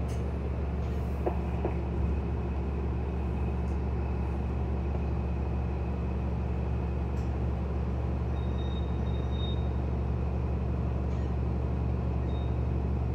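Steady low rumble of a city transit bus's engine and running gear, heard from inside the passenger cabin.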